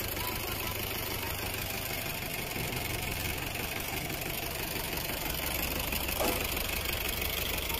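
Tractor diesel engine idling steadily with a low rumble.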